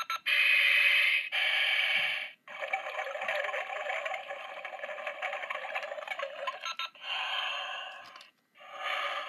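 Tinny electronic sound effects from the small built-in speaker of a Thinkway Aqua Buzz Lightyear talking toy, played in its motion-sensitive mode. They come in several bursts with short gaps, one long stretch in the middle.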